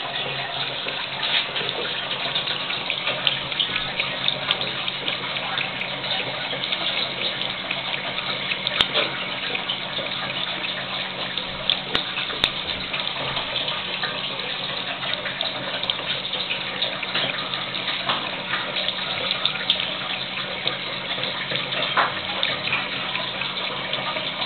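Thin stream of water running steadily from a wash-basin tap, splashing into the basin by the drain, with small irregular splashes.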